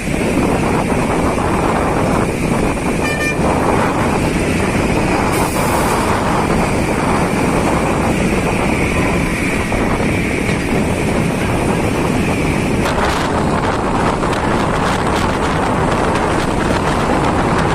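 Steady noise of road traffic on a flooded highway, with a vehicle horn tooting briefly about three seconds in.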